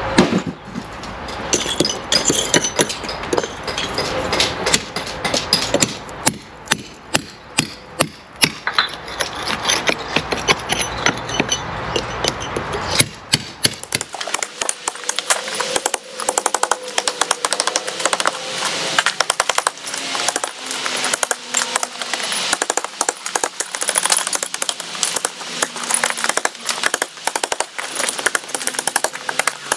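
Lump hammer striking a steel chisel, chipping mortar and brick out of the wall above a rusted steel angle-iron lintel: repeated sharp strikes, a few a second. After about fourteen seconds the strikes come faster and closer together.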